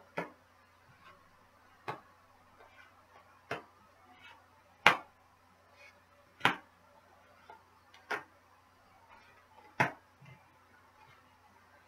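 Tarot cards dealt face down one at a time onto a hard table top, each landing with a sharp tap: seven taps at an even pace, about one every second and a half.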